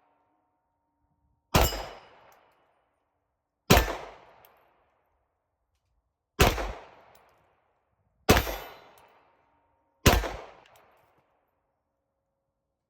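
Five single shots from a 9mm HK VP9L pistol, fired at a slow, uneven pace about two seconds apart, each with a short echoing tail. A faint ring of struck steel plate lingers after some shots.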